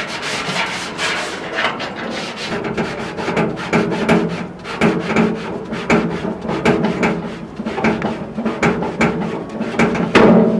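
Sponge scrubbing pad rubbed back and forth over a metal barbecue grill grate, in quick scrubbing strokes about two a second, with a louder knock against the grate near the end.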